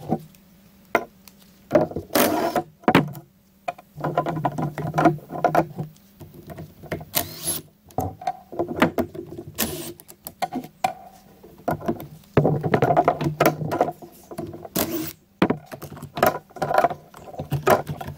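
Cordless impact driver backing out the star-bit screws on a Stihl TS 400 cut-off saw's water fitting and recoil cover. It runs in about five short rattling bursts, with sharp clicks of screws and parts being handled between them.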